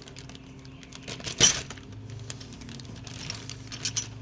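Plastic zip-seal bag being forced open by hand: scattered sharp plastic clicks and rustles, with one loud snap about a second and a half in, the sort of sound of the bag's slider clip being pulled off.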